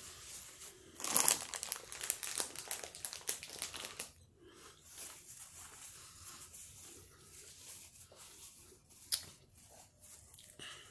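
Crinkling and rustling handled close to the microphone for about three seconds, starting about a second in, then softer scattered clicks and one sharp click near the end, while someone chews a snack.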